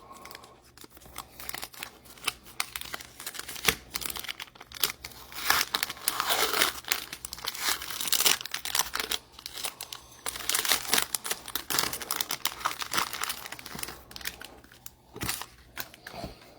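Trading card pack wrappers crinkling and tearing as packs are ripped open and handled, in a run of irregular crackly rustles and sharp ticks that thins out near the end.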